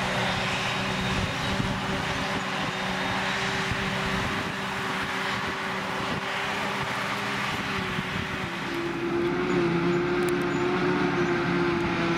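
Tractor engine running steadily while it works a silage field. About eight and a half seconds in, a louder, steadier drone takes over: a Claas Jaguar 860 self-propelled forage harvester chopping grass and blowing it into a trailer.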